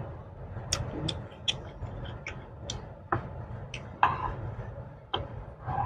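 Close-up eating sounds of a person chewing a mouthful of seblak: sharp, wet mouth clicks and smacks, about ten in irregular succession.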